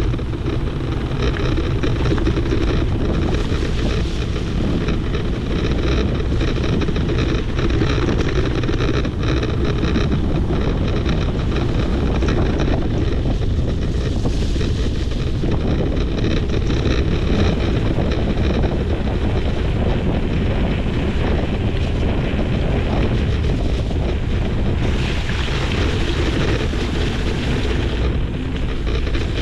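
Heavy wind buffeting on the camera microphone during a ride on an electric mountain bike, over a constant low rumble with fine rattle from the ride.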